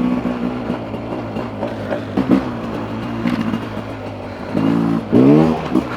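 Beta RR 300's single-cylinder two-stroke engine running at low revs under a riding load, then a burst of throttle about five seconds in that rises quickly in pitch.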